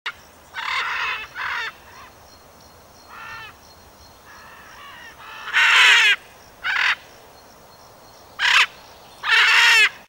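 Large parrot squawking: about eight separate harsh calls with pauses between, the loudest about halfway through and just before the end.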